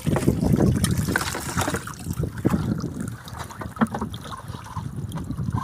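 Seawater splashing and dripping off a wire-mesh fish trap as it is hauled up out of the sea, with a few knocks. The splashing is loudest at the start and eases off after a couple of seconds.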